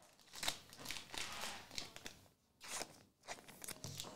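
Trading cards and foil card packs being handled and set down on a table: soft, irregular rustling and crinkling in short bursts with brief pauses.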